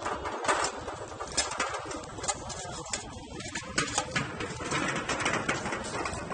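Cardboard packaging rustling and tapping as it is folded and pushed down into a small perforated metal camp stove, with irregular clicks throughout.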